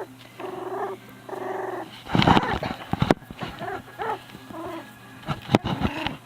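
Shetland Sheepdog puppies, a few weeks old, play-growling: a series of short, high-pitched growls and grunts, with a few sharp knocks near the end.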